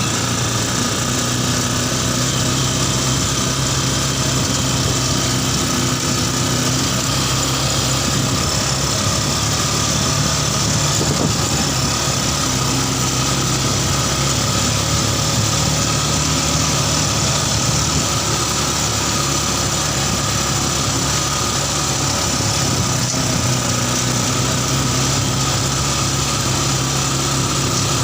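Yamaha Scorpio Z single-cylinder four-stroke motorcycle engine in a mini buggy, running steadily at an even, idle-like speed with no revving.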